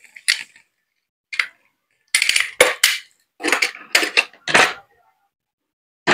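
Plastic shrink wrap on a card box crinkling and crackling as it is slit and peeled off by hand, in irregular bursts that are busiest in the middle, with one sharp crackle near the end.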